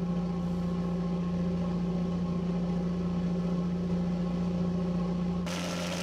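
A crab-fishing boat's engine running steadily underway, a constant low hum. About five and a half seconds in a rushing hiss joins it.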